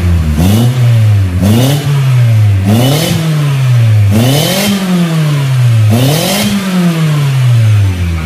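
Proton Inspira's four-cylinder petrol engine revved in about five blips, each climbing quickly and then dropping away slowly, heard through an aftermarket muffler held by hand on the tailpipe for a sound test.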